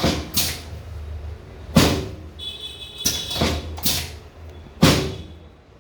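Sharp, loud clacks from the segments of a chiropractic drop table being set and dropped, six or seven knocks at irregular spacing, over a low steady hum.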